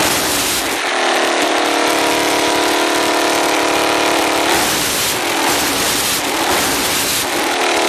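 Suzuki LTZ400 ATV's single-cylinder four-stroke engine idling and revved twice, briefly at the start and for about three seconds from just past the middle, carrying the rattle noise the owner is trying to show.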